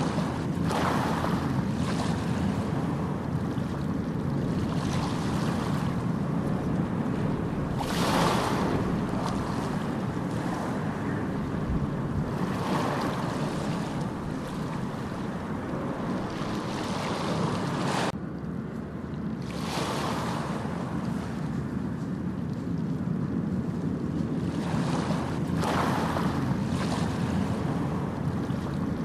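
Steady rushing, rumbling noise that swells every few seconds and dips briefly about eighteen seconds in.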